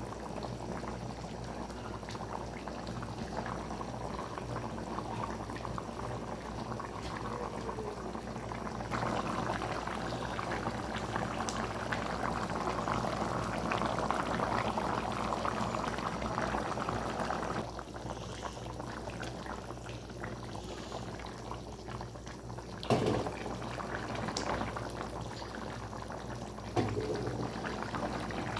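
Rohu fish and pumpkin curry bubbling steadily in a pan, with the bubbling growing louder for several seconds in the middle. Two sharp knocks come near the end, about four seconds apart.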